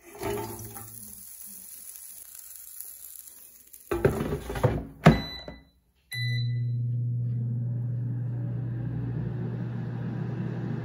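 Cut potatoes sliding out of a metal bowl into a plastic air fryer basket, then a few knocks as the basket is pushed shut into a PowerXL Vortex Pro 4-quart air fryer. Two short beeps about a second apart, then the fryer's fan starts with a steady hum as a cook cycle begins.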